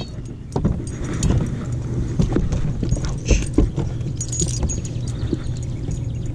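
A bass being handled on a plastic fish-measuring board in a boat: scattered knocks, taps and rattles, the loudest a few seconds in, over a steady low hum.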